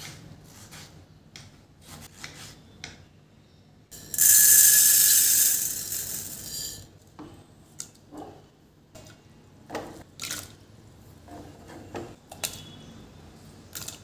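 A knife tapping through tomato on a wooden chopping board, then about four seconds in a loud rush of water pouring into an aluminium pressure cooker for about three seconds. After it, scattered soft plops and knocks as curry leaves and chopped vegetables are dropped into the water.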